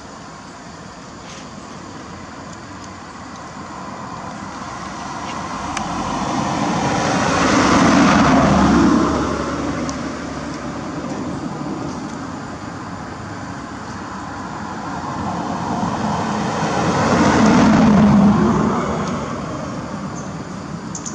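Two motor vehicles passing by one after the other, each swelling up over several seconds and then fading, the first loudest about eight seconds in and the second about eighteen seconds in, over a steady background of traffic noise.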